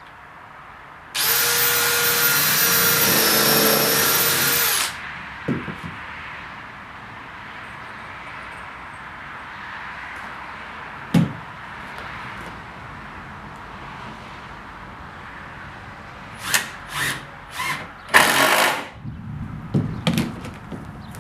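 Power drill running steadily for about four seconds as it drills into wood, followed by a single knock and then several short trigger bursts and one longer run near the end.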